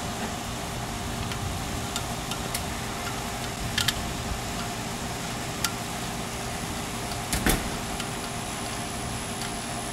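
A steady background hum with scattered small metallic clicks and taps as a small screwdriver works the terminal screws of a heater thermostat and its metal bracket is handled. The loudest taps come about four seconds in and about seven and a half seconds in.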